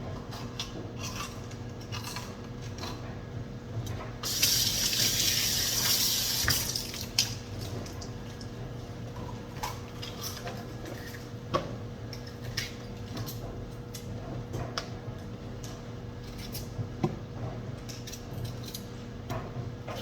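A kitchen tap runs for about two seconds, starting about four seconds in. Around it, scattered light clicks and knocks of dishes and utensils being handled are heard over a steady low hum.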